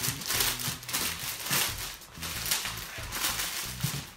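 Clear cellophane wrap crinkling and crackling in repeated rustles as it is handled and tucked around a wrapped gift.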